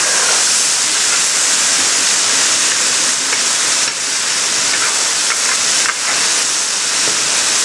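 Steady sizzling hiss of food frying in a large pilaf cauldron, with a few faint crackles.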